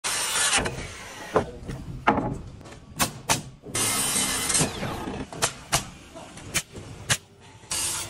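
A circular saw cutting through framing lumber in two short bursts, one at the start and one about four seconds in. Between and after them come single sharp cracks of a framing nailer firing nails into the wood.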